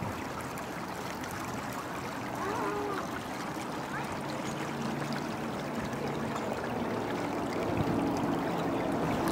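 Spring water running steadily through a stone channel, a continuous rushing trickle.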